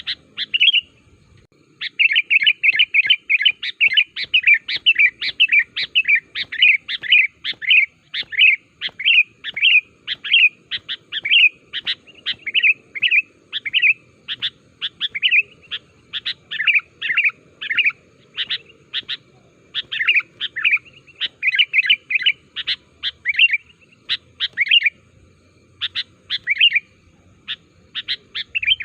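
Sooty-headed bulbul (kutilang) calling busily: a fast, almost unbroken run of short, sharp notes, with a brief pause about a second in.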